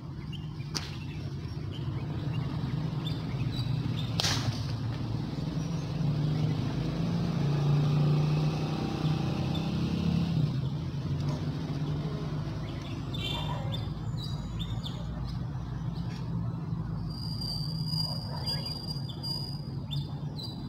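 A low vehicle rumble swells in the middle and fades again. A single sharp air-rifle crack comes about four seconds in, and birds chirp near the end.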